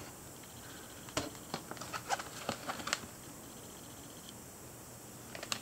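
Hard clear plastic blister packaging of a knife being handled, giving a run of small crackles and clicks for about two seconds, then a single sharper click at the very end.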